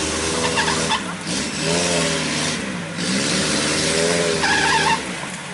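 Off-road jeep engine revving hard, the revs rising and falling several times, with a steady hiss over it.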